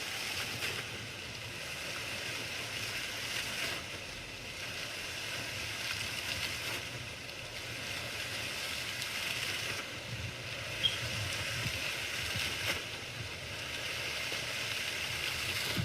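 A steady rushing noise played back from a sound-effect recording, even and unbroken, brightest in the upper register.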